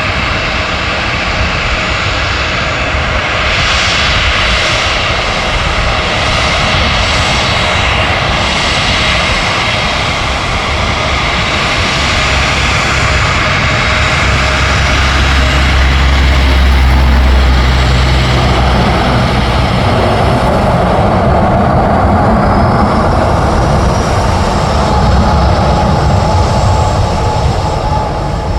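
Boeing 737-800's CFM56 turbofan jet engines running loud as the airliner passes during its landing. A sweeping, phasing roar in the first several seconds; a deep rumble swells about halfway through, then the roar continues more evenly.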